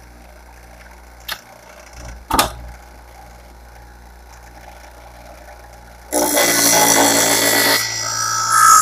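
Twice As Sharp scissor sharpener's motor running with a quiet steady hum and a couple of light clicks. About six seconds in comes a loud grinding rasp of a pinking-shear blade against the spinning wheel, lasting a little over two seconds and ending in a thin ringing tone.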